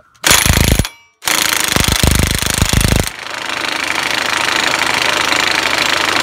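Impact wrench hammering on a 36 mm front axle nut: a short burst, then a longer run of rapid hammering. About three seconds in, the hammering gives way to steady free running as the loosened nut spins off.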